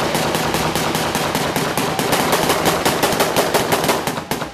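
Automatic gunfire: a fast, unbroken string of sharp shots, about nine a second, loud and close.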